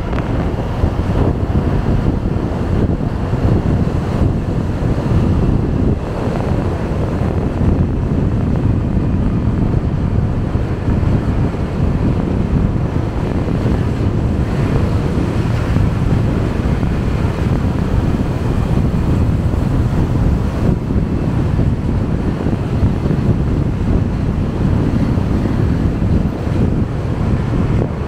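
Wind buffeting the microphone on a moving motorcycle taxi, over a steady low rumble of the motorcycle and road.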